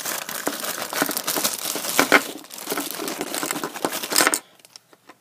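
Plastic bag crinkling and rustling as hands work it open, with sharp crackles, stopping abruptly about four seconds in.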